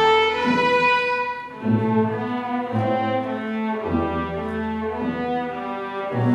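A youth string orchestra playing: violins in sustained bowed notes over cellos and double bass. The sound dips briefly about a second and a half in, then the low strings come back in under the upper parts.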